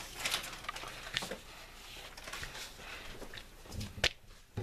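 Paper napkins rustling and crinkling as hands smooth them down and handle them, with a sharp tap about four seconds in.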